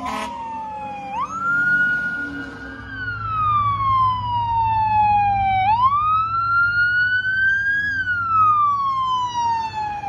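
Fire department vehicle's siren on a slow wail: the pitch sweeps up quickly about a second in and again near the middle, then falls slowly each time. A low engine rumble runs underneath.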